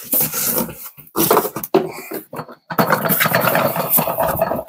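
Handling of a dust separator's yellow plastic bucket and lid: a run of short plastic scrapes and knocks as the lid comes off and the hoses shift, then a longer continuous scraping rustle near the end as the bucket is lifted and tipped.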